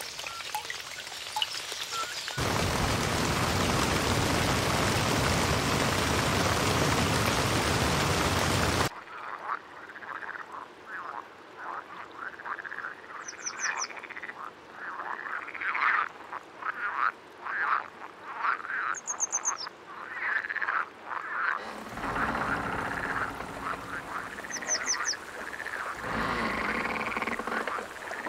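A steady rushing noise, then, from about nine seconds in, frogs croaking in a chorus of short repeated calls, with a few quick high chirps above them.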